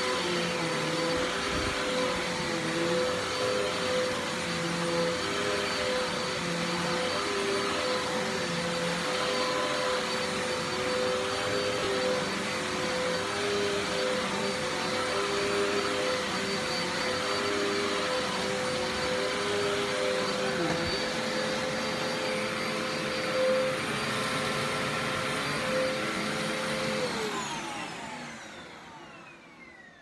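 Hoover Sprint Quick Vac upright vacuum cleaner running while pushed back and forth over carpet, its hum wavering with each stroke. Near the end it is switched off and the motor winds down with a falling whine.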